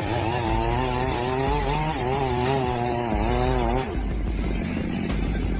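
A power tool running at high speed, its pitched whine wavering up and down. About four seconds in the whine drops away, leaving a rough, gritty noise.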